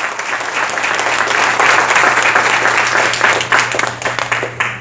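Audience applauding: dense clapping that swells in the middle and then breaks off near the end.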